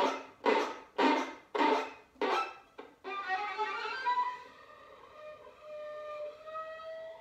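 Solo violin: a run of loud, sharply accented strokes about two a second, then, from about three seconds in, quieter held notes.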